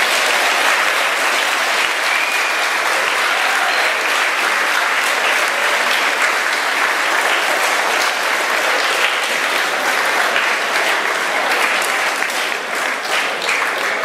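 Large seated audience applauding steadily, dying down near the end.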